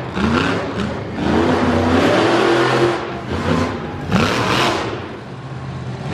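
Monster truck engine revving hard in repeated bursts, its pitch rising with each throttle stab as the truck accelerates and turns on the dirt.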